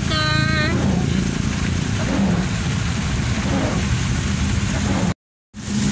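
Steady vehicle driving noise in heavy rain: engine rumble under an even hiss of rain and wet road. A brief high voice-like sound opens it, and the sound cuts off suddenly near the end.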